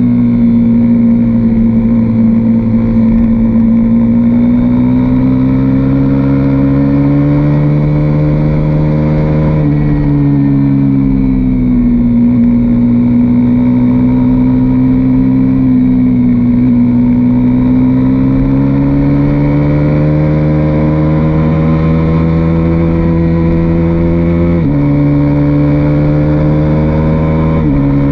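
KTM RC single-cylinder motorcycle engine running hard under steady throttle on a track lap. The pitch climbs slowly, drops sharply with a gear change about ten seconds in, climbs again, and steps abruptly near the end.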